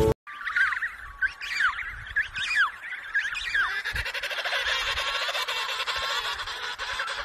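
Emperor penguin colony calling. In the first few seconds single whistling calls slide up and down in pitch, then from about halfway many birds call at once in a dense, overlapping chorus.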